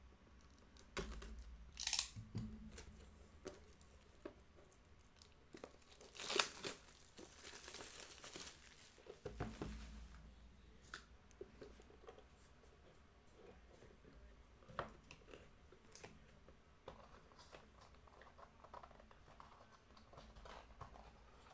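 Plastic shrink wrap being slit and ripped off a cardboard trading-card box, with sharp crinkles and one long tearing rip. Afterwards only soft taps and rustles of the box being handled.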